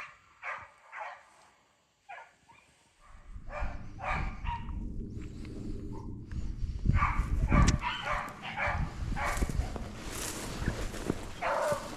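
Beagles baying, a series of repeated hound calls, the sound of the pack trailing a rabbit. A low rumbling noise on the microphone comes in about three seconds in.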